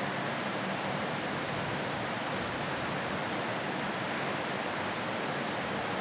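Steady rain falling, an even hiss that does not change.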